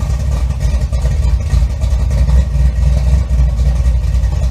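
Car engine running, a loud steady low rumble.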